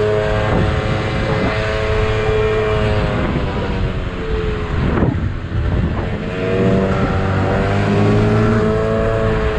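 Motorcycle engine running at road speed as the bike rides along. The engine note sags about four seconds in, then climbs steadily again.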